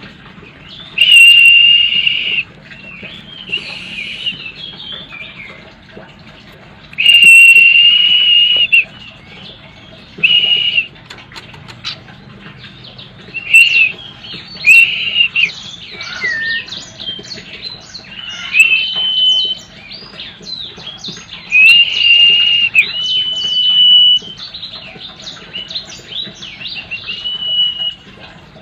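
A common iora (cipoh/sirtu) calling, loud and close: about six long, level whistled notes of a second or more each, with many short chirps and quick notes in between.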